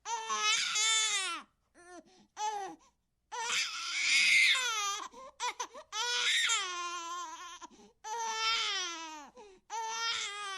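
Baby-like crying: a run of high, drawn-out wails, each falling in pitch at its end, with short broken sobs between them. The loudest wail comes about four seconds in.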